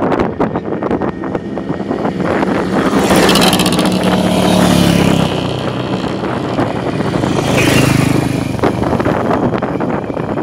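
Classic racing motorcycles running at speed past the microphone, twice. Each engine rises to a loud peak, then falls in pitch as it goes by. There is wind buffeting on the microphone at the start.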